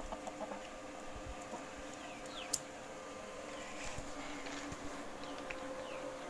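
A steady low hum with, from about two seconds in, a few short, high, falling chirps of small birds.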